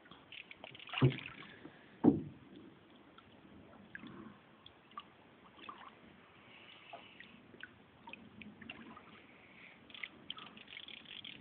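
Water splashing and dripping around a small fishing boat, with two loud thumps about a second and two seconds in, followed by scattered small clicks and drips.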